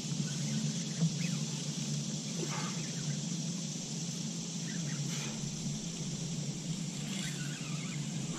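Outdoor riverside background: a steady low hum and hiss, a few faint bird chirps, and one sharp click about a second in.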